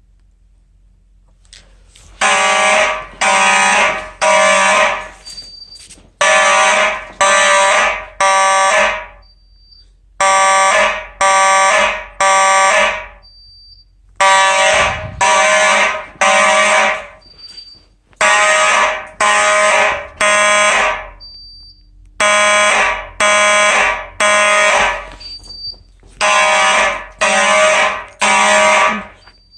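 Simplex fire alarm horns start up about two seconds in and sound in the three-pulse temporal (code-3) evacuation pattern: three buzzy blasts, a pause, repeated. A short high beep sounds in each pause.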